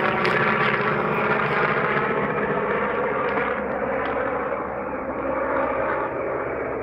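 Helicopter flying overhead: a steady engine and rotor drone that eases off slightly as it passes.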